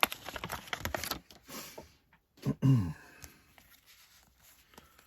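Card-pack wrapper crinkling and tearing as a pack is opened, then a short vocal sound falling in pitch about two and a half seconds in, with a few light handling clicks after.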